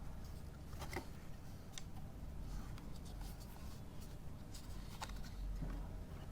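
Faint handling noise: a few light clicks and small rustles, about a second in, near two seconds and near five seconds, over a steady low hum.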